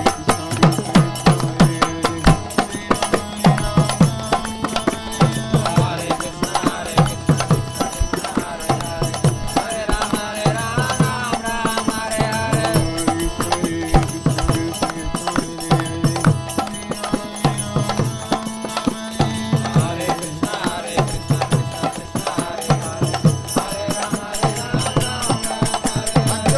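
Kirtan music: a drum keeps a steady beat under ringing hand cymbals and sustained tones, with chanting voices.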